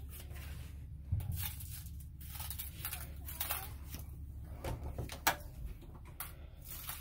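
A wooden interior door being opened by its small knob: scattered light knocks and handling bumps, with a sharp latch click, the loudest sound, about five seconds in, over a steady low hum.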